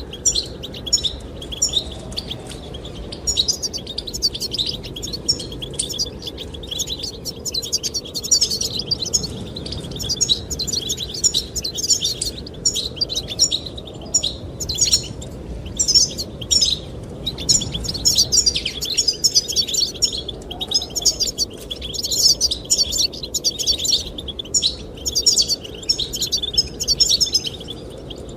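Goldfinches singing, a dense run of rapid twittering chirps and trills that goes on without a break, over a steady low rush of wind.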